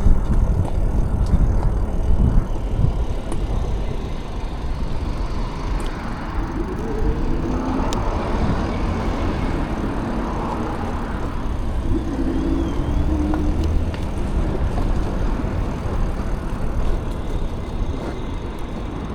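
Road traffic: a steady low rumble, with a louder vehicle passing through the middle, its pitch wavering as it goes by.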